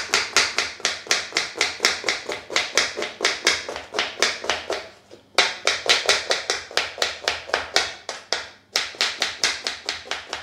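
Kitchen knife slicing a red onion into thin strips on a wooden cutting board: quick, even chops at about four to five a second, with two short pauses, one about halfway through and one near the end.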